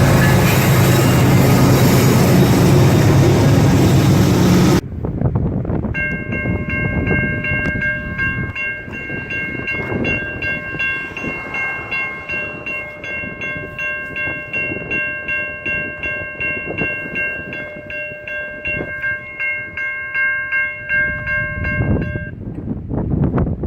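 A train passing close by with heavy rumble, cut off suddenly about five seconds in. Then a locomotive horn sounds one long steady chord of several tones for about sixteen seconds over an even rhythmic pulsing, and stops near the end.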